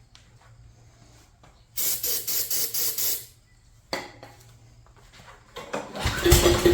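Aerosol can sprayed in a rapid run of short squirts for about a second and a half, then a sharp click. Near the end the chipper shredder's small gas engine fires and catches, running with a fast pulsing beat.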